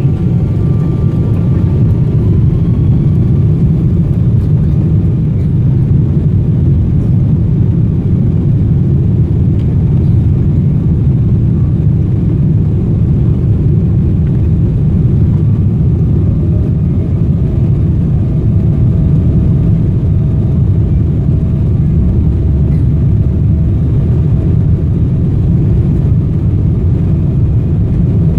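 Cabin noise of a Boeing 777-200ER: a steady, loud, deep rumble of its engines and airflow, with a faint steady whine coming in about halfway through.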